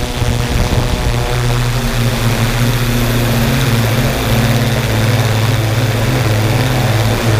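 A camera drone's electric motors and propellers, heard from on board: a steady, loud hum with a strong low note that shifts slightly in pitch, over a hiss of rushing air.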